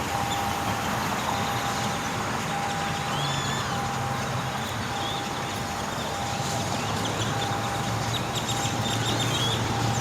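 Steady motor-vehicle noise with a low engine hum, and a flock of birds chirping over it, the chirps coming thicker in the second half.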